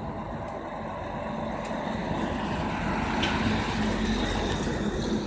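A box truck's engine running as the truck drives close past, growing louder over the first few seconds, over steady street traffic noise.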